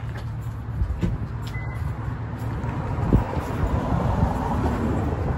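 Road traffic: a steady low rumble of passing vehicles, growing a little louder about three seconds in as one goes by.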